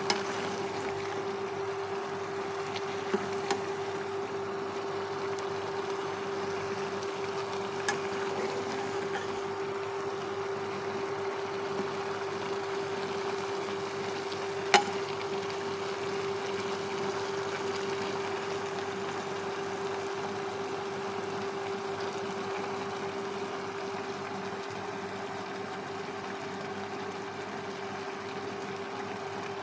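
Induction cooktop running with a steady hum under a simmering pot of vegetables, broken by a few sharp clinks of a metal ladle against the pot, the loudest about 15 seconds in.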